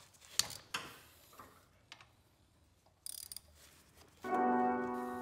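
A few sharp metal clicks and taps from hand tools and small parts on a motorcycle cylinder head, with a short quick cluster of clicks about three seconds in. Background music with sustained piano-like notes comes in about four seconds in and is the loudest sound.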